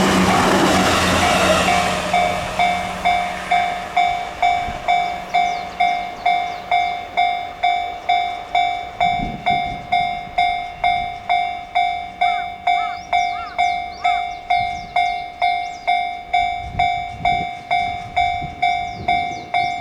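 The rumble of a passing electric train fades out in the first two seconds. A Japanese level-crossing alarm then keeps ringing, an even electronic ding about twice a second.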